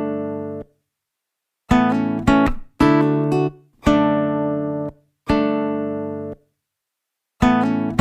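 Background music: acoustic guitar chords, each struck and left to ring for about a second before cutting off, with short silent gaps between them.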